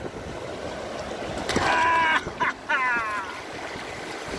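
Wind on the microphone over the wash of surf, with a high, held cry about one and a half seconds in and a shorter falling cry about a second later.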